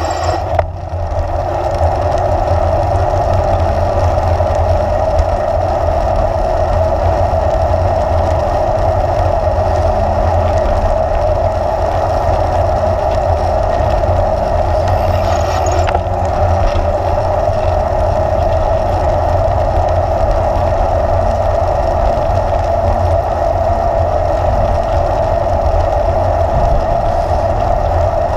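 Bicycle riding along a paved bike lane: steady tyre and drivetrain hum with a low rumble of wind on the camera microphone.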